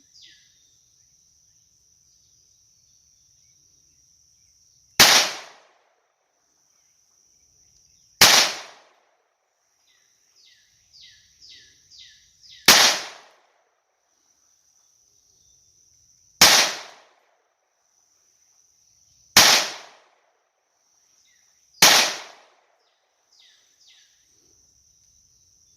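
Smith & Wesson M&P22 Compact .22 LR pistol fired six times, single shots spaced about 2.5 to 4.5 seconds apart, each a sharp crack with a short ring-out.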